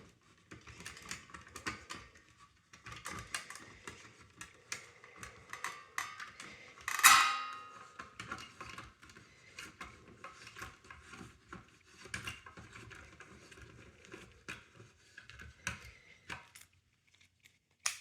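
Fire alarm pull station being reset by hand: scattered small clicks and rattles of metal parts, with one louder metallic clank and a brief ring about seven seconds in.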